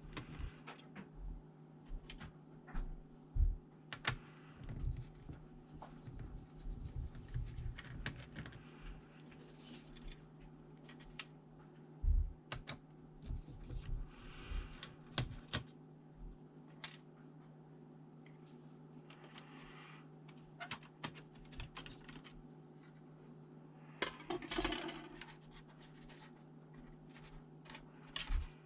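Scattered small clicks, taps and short scrapes of a ThinkPad T400 laptop's plastic and metal parts being handled during disassembly, with a steady low hum underneath.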